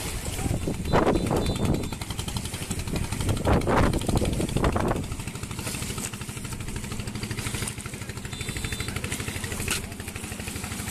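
A small engine running with a fast, even pulse. It swells louder twice in the first five seconds, then settles to a steady run.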